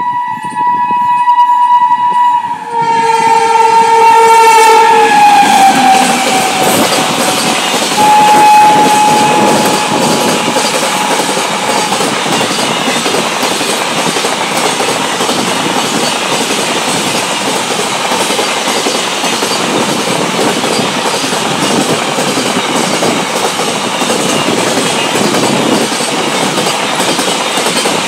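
Electric locomotive's horn sounding a long multi-tone blast that drops in pitch as it passes close, then a shorter steady blast about eight seconds in. After that comes the steady noise and clickety-clack of a container freight train's wagons rolling past.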